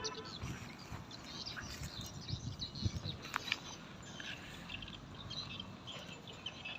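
Small birds chirping on and off, with a few soft low thumps mixed in.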